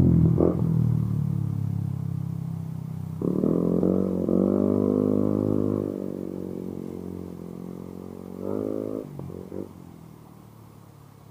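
Engine of a motor vehicle on the road moving away and fading steadily. Its engine note swells again about three seconds in and briefly near nine seconds, then dies to a faint hum.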